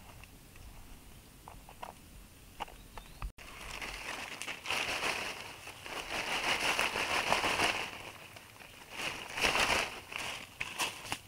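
Fresh green leaves rustling and crinkling as a leafy branch is shaken and handled by hand. There are a few faint clicks at first, then two spells of dense rustling: a long one of about four seconds and a shorter one near the end.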